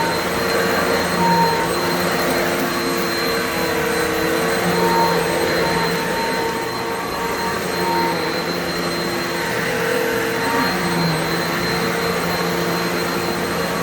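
Upright vacuum cleaner running continuously while vacuuming, a steady high motor whine over a lower hum that shifts in pitch every second or two as the machine is worked.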